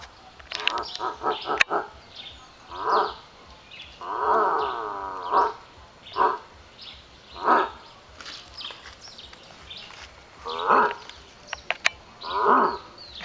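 Black howler monkey roaring calls: a string of short, rough, grunting roars with one longer drawn-out roar about four seconds in, given to draw a reply from the troop's male.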